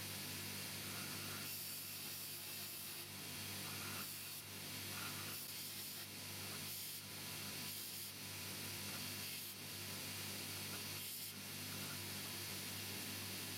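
Abrasive rubbing, a stroke roughly every one to one and a half seconds, over a steady hiss and a low hum.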